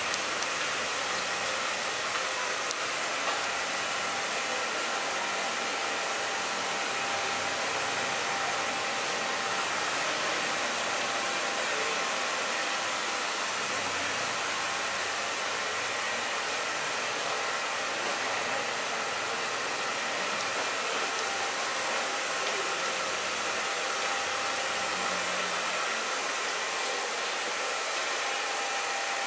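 Steady hiss of a small blower motor, with a faint high whine running through it.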